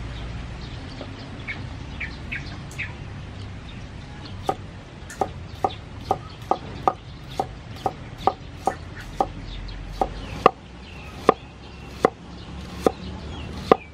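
Steel cleaver slicing shallots on a wooden chopping board: sharp knocks about two a second, starting about four seconds in and spacing out near the end. A few faint bird calls come before the chopping starts.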